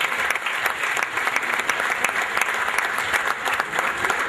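An audience applauding, many hands clapping at an even level.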